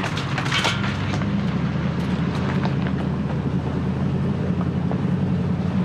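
Vehicle driving along a backcountry dirt road: steady low engine hum with road and tyre noise and a few light ticks, heard from inside the cab.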